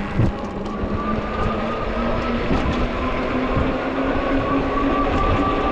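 Ecotric 20-inch fat-tire e-bike in motion: a steady whine that rises slightly in pitch, over road and wind noise.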